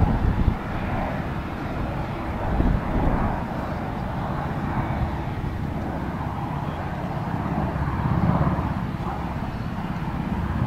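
Bell Boeing MV-22 Osprey tiltrotor in flight, its two proprotors and turboshaft engines giving a steady low rumble. The rumble swells and eases every few seconds as the aircraft banks through its display.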